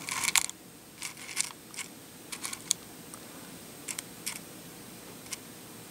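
Heavy 7 mm 14k gold rope chain handled on a metal scale platform, its links clinking and rustling as it is bunched up and settles: a scatter of light clicks, densest in the first half second, then sparser.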